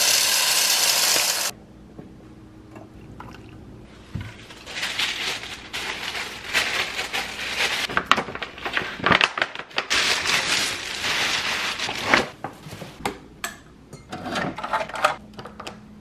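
Coffee beans pouring from a bag into a grinder hopper for about a second and a half, then tissue paper rustling and crinkling in irregular bursts as it is handled.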